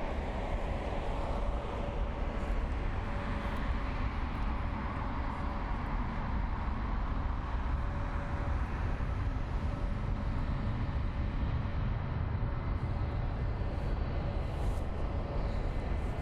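Steady rumble of jet aircraft engines running at the airport, with a faint steady whine over it.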